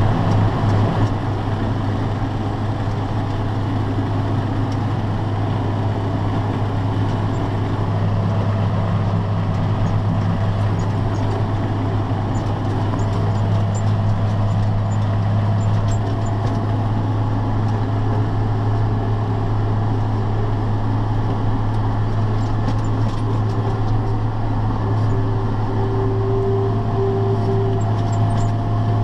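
Tractor engine running steadily at a constant speed with a steady machinery hum, during ear-corn picking.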